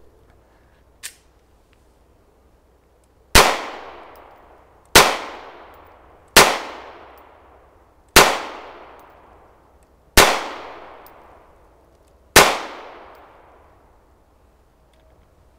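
SIG Sauer P250 pistol fired six times, about one and a half to two seconds apart, each shot followed by a fading echo.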